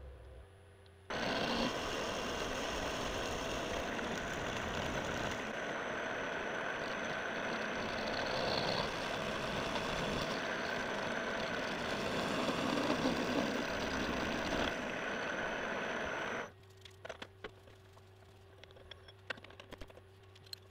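End mill on a milling machine cutting into a metal block: a loud, steady cutting noise with a high whine that starts abruptly about a second in and stops abruptly near the end. Afterwards only a low machine hum with a few light clicks remains.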